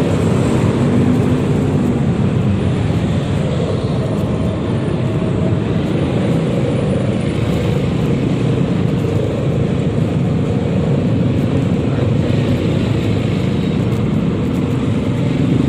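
Yamaha XMAX 300 scooter on the move: its single-cylinder engine through the stock exhaust, mixed with a steady rush of wind on the microphone and road traffic around it.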